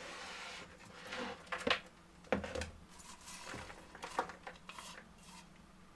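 Shredded white cabbage rustling and crackling as handfuls are scooped by hand and dropped into a plastic mixing bowl, with a few light knocks against the bowl.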